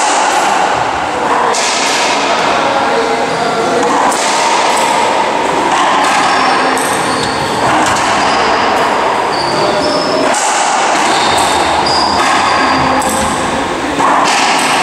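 Racquetball rally: the ball struck by racquets and hitting the court walls and floor, with sharp hits every second or two over a dense, echoing court noise.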